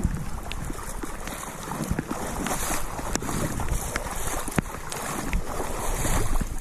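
Boots wading and splashing through shallow floodwater in swells every second or so, with wind buffeting the microphone.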